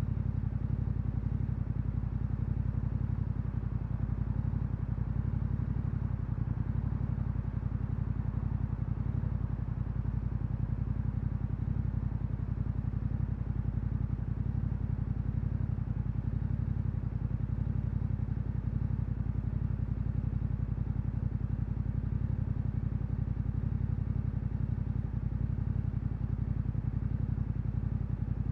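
Yamaha Ténéré 700's 689 cc parallel-twin engine, breathing through an Akrapovič exhaust, running at a steady, nearly even pitch while cruising.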